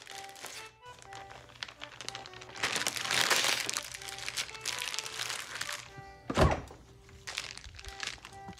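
Plastic zip-top bag crinkling as raw fish steaks are packed into it, over background music of short melodic notes. A single heavy thump, the loudest sound, comes about six and a half seconds in.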